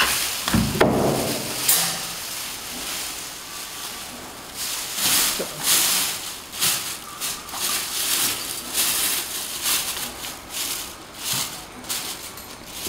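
Plastic film bag crinkling and rustling as hands press and handle it, in short irregular rustles, with a dull thump about a second in.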